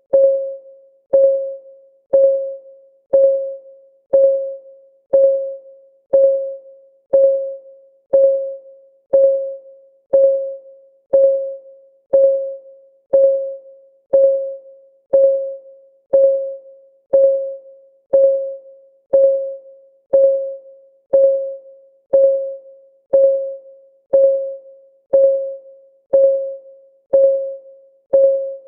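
Countdown timer's clock-tick sound effect: a short, pitched tick once a second, each fading within about half a second, all at the same pitch and loudness.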